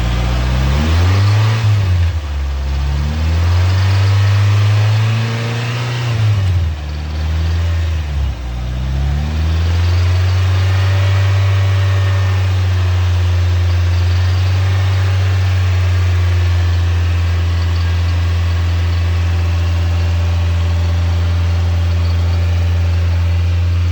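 NB Mazda Miata 1.8 VVT inline-four engine revved up and down several times, then settling to a steady idle about ten seconds in. The owner is listening for a possible rod knock.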